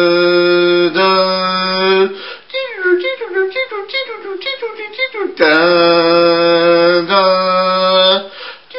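Music: two long held notes, then a run of shorter, quicker notes, and the same pattern again about five seconds in.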